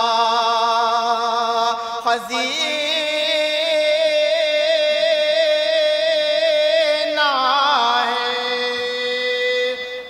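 Men's voices singing an Urdu naat without instruments, drawing out long held notes with vibrato. The pitch steps up about two seconds in and slides down again about seven seconds in.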